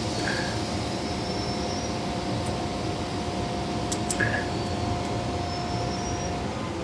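Steady hum of background machinery or a fan, with a thin steady tone that cuts off shortly before the end. A couple of light clicks come about four seconds in.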